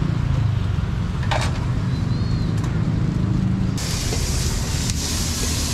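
Steady low rumble of street traffic, with a short clatter about a second in and a brighter hiss joining about two-thirds of the way through.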